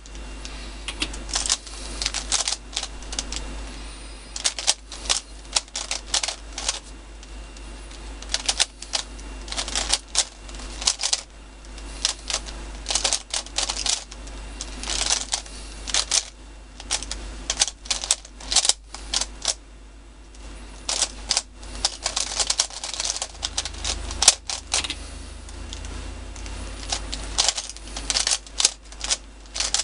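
MoYu Weilong 3x3 speedcube being turned fast during a timed solve: rapid bursts of plastic clicking and clacking, with short pauses between the bursts.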